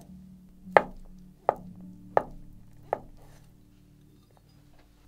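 A kitchen knife chopping on a cutting board: about five sharp, evenly spaced cuts a little under a second apart, stopping about three seconds in.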